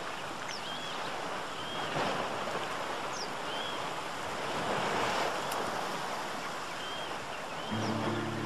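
Rushing water of a cascading creek running steadily, with a few brief high chirps over it. A low steady music chord comes in near the end.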